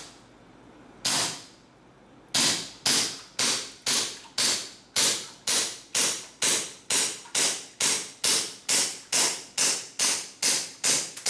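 KJ Works KP17, a Glock 17-pattern airsoft pistol on a CO2 magazine, firing semi-auto: a single shot about a second in, then a steady string of sharp cracks with the slide cycling, about two shots a second, as the magazine is shot empty.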